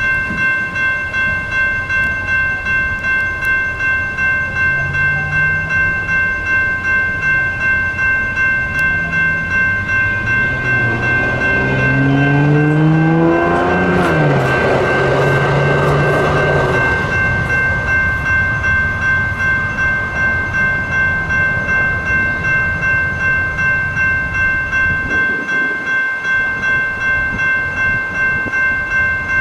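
Railroad crossing electronic bells ringing steadily and rhythmically at an active crossing. A light rail train passes through it: a low hum rises in pitch as the train approaches and falls away as it goes by, with wheel-on-rail rumble loudest around the middle.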